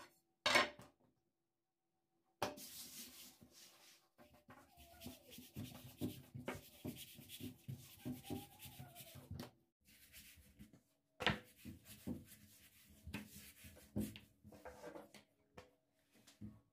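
Kitchen prep by hand: rubbing and soft knocks of food being worked on a kitchen surface, in several short stretches with brief silent gaps between them.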